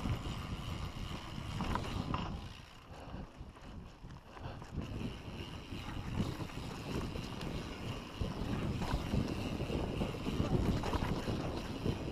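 Wind buffeting the microphone over the rumble of mountain bike tyres rolling on a dirt trail, easing off for a couple of seconds about three seconds in.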